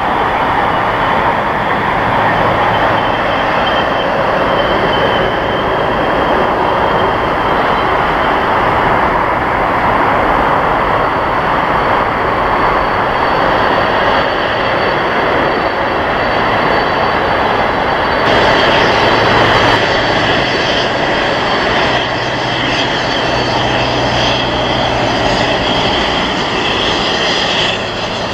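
Boeing 747-400 freighter's four turbofan engines running at taxi power: a steady loud rush with a high whine, the whine brightening a little past the middle.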